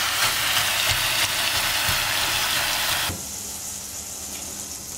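Minced meat and diced vegetables sizzling loudly in a hot enamelled cast-iron pot while a silicone spatula stirs them. About three seconds in, the sound cuts off suddenly to a quieter hiss as wine is poured into the pot.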